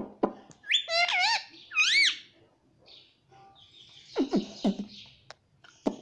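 Indian ringneck parakeet calling: two rising and falling whistled notes about a second in, then a harsher, raspy cluster of falling notes around four to five seconds in.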